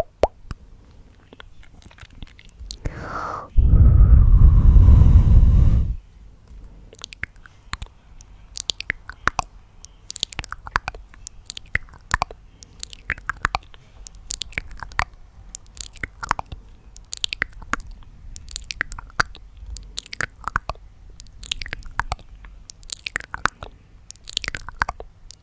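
Close-miked wet mouth sounds and tongue clicks: many quick, irregular clicks and smacks. About three and a half seconds in there is one loud breath lasting about two seconds.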